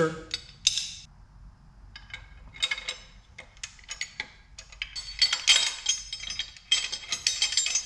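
Bolts and spacers clinking and tapping against a billet aluminum accessory bracket as it is handled and fitted by hand. The light metallic clinks come in uneven clusters and are busiest in the second half.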